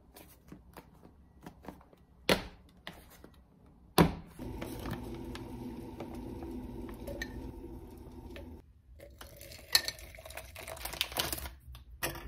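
Kitchen handling sounds: plastic food-container lids clicked shut, and a sharp knock about four seconds in. A steady hum follows for about four seconds, then a metal spoon clinks against a glass mug.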